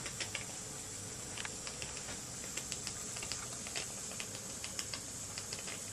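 Small scratch-built model steam engine running slowly on low pressure: a steady hiss from the boiler with light, irregular ticking and clicking over it.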